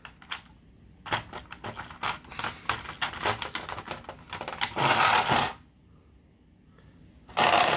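Plastic toy packaging being handled and opened by hand: a run of quick crackling clicks lasting a few seconds, then a short rustling swish, and another near the end.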